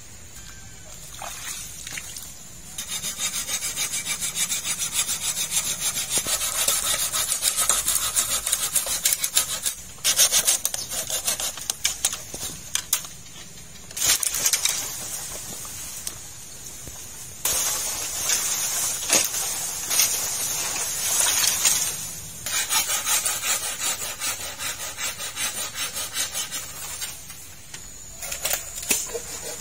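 Hand saw cutting through green bamboo culms with quick back-and-forth strokes. The sawing comes in several bouts of a few seconds each, with short pauses between them.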